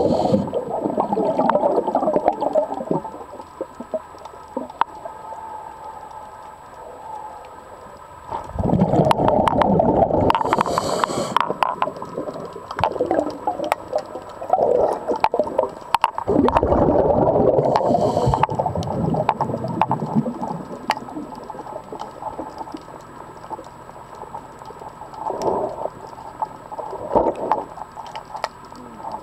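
Muffled underwater sound through the camera housing: long surges of bubbling, rushing noise, three of them about eight seconds apart and smaller ones near the end, with faint clicks in between.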